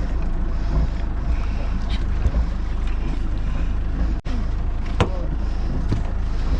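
Steady low rumble of a small fishing boat at sea, with wind on the microphone and a few short clicks.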